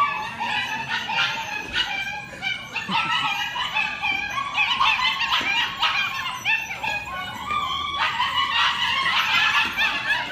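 A litter of six- to seven-week-old German Shepherd puppies yipping and barking together, many short high-pitched yips overlapping without a break, as they chase after a running handler.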